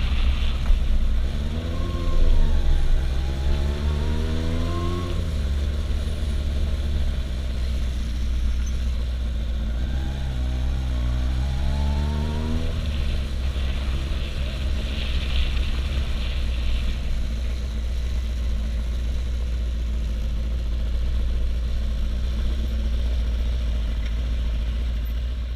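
Kawasaki Zephyr 750's air-cooled inline-four engine running as the motorcycle rides at low speed through traffic, over a steady low wind rumble. The engine note rises and falls twice, at about two and eleven seconds in, then settles into an even low hum.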